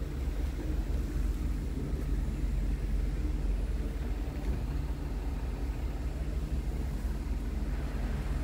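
Scania R tractor unit's diesel engine idling steadily.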